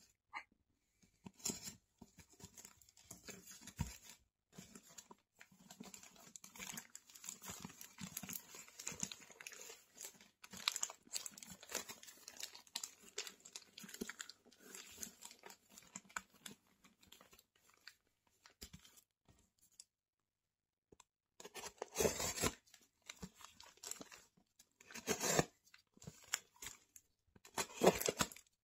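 A plastic mailing bag is crinkled and rustled close to the microphone, with a brief pause about two-thirds of the way through. Then come several louder ripping strokes as the bag is torn and slit open with a utility knife.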